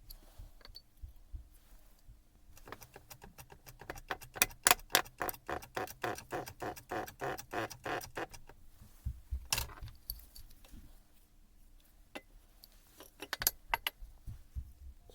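A run of quick, even metallic clicks, about five a second, for several seconds, then a few single knocks: metal tools and parts being handled at a workbench.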